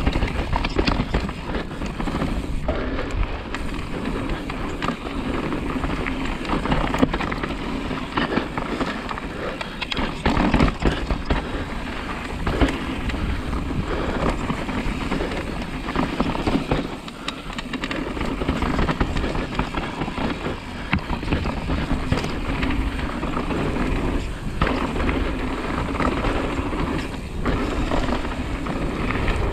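Downhill mountain bike ridden fast down a dirt trail: tyres rumbling and crunching over dirt and stones, with the chain and frame clattering over bumps and a steady rush of wind on the microphone.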